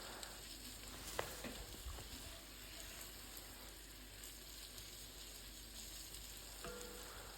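Onions, garlic and paprika frying gently in a pan: a faint, steady sizzle, with a light click about a second in.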